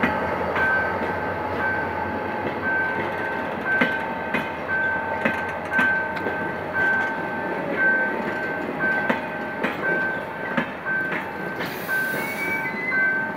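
Passenger train coaches rolling past, wheels clacking over the rail joints above a steady rumble. A high beep repeats a little over once a second, and a short hiss comes in near the end.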